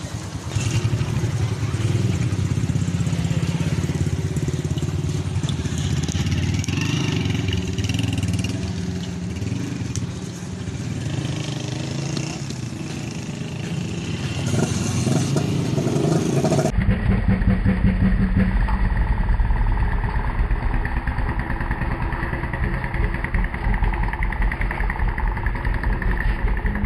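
Motorcycle engines running amid street traffic, a dense low pulsing rumble. About two-thirds of the way through, the sound cuts abruptly to a deeper, heavier engine rumble.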